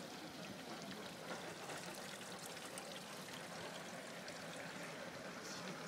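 Water welling up out of the ground after an earthquake and running across the pavement in a steady, even stream.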